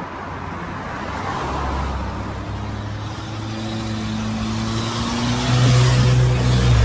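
Car engine running with road and wind noise, heard from inside a moving car. The engine note rises slowly and grows louder toward the end.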